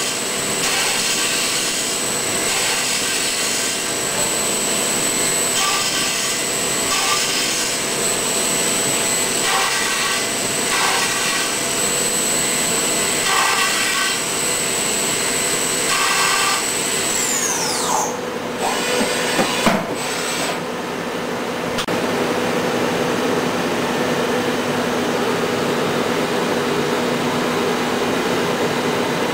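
Milling machine cutting pockets into a blue foam insert: a steady high spindle whine over a rasping cut that swells in repeated passes. About two-thirds of the way in the whine falls away as the spindle winds down, a few knocks follow, and a steady machine hum carries on.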